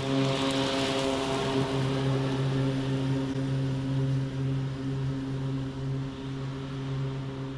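Toro Revolution Grandstand battery-powered stand-on mower running under mowing, with a steady electric hum and whine and the hiss of grass being cut. The hum dips briefly several times.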